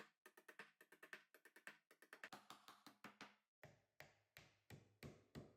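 Faint background music of quick, evenly spaced percussive notes, thinning to a few single strokes before it stops near the end.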